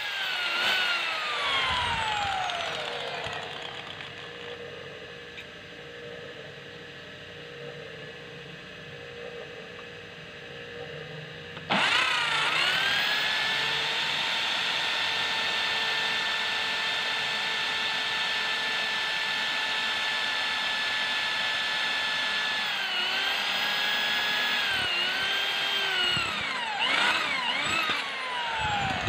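Handheld electric drill boring a freshly sharpened twist bit through steel angle iron. The motor whine falls away at the start and runs quieter for about ten seconds. About twelve seconds in it comes in loud and steady, then wavers and dips in pitch near the end as the bit bites, and winds down at the close.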